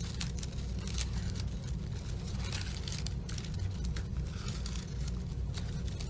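Thin craft paper rustling and crinkling in the hands as a fringed paper strip is wrapped round and round a stem, in short irregular crackles. A steady low hum runs underneath.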